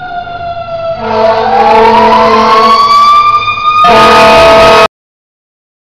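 Fire engine sirens: one winding down, then about a second in a mechanical siren, a Federal Q, winding up and holding its pitch over a steady horn tone. It gets louder and harsher near four seconds in, then the sound cuts off suddenly about a second later.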